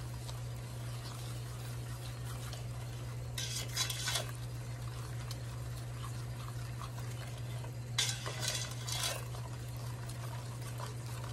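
Silicone spoon stirring and scraping a thick cocoa, sugar, butter and milk mixture in a stainless steel pot, with two louder bouts of scraping against the pot, about four seconds in and again around eight to nine seconds. A steady low hum runs underneath.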